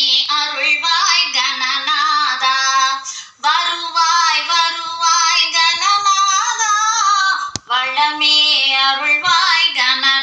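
A high solo voice singing a Tamil devotional song to Ganesha in long, ornamented phrases, pausing briefly twice.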